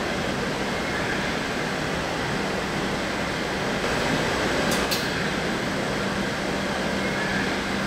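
DD16 diesel-hydraulic locomotive standing and idling: a steady hum and rumble, with two brief clicks about five seconds in.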